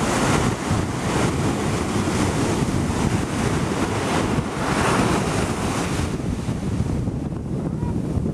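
Ocean surf breaking on a beach, with wind buffeting the microphone. The rush of the waves swells around the start and again about five seconds in, then eases off near the end.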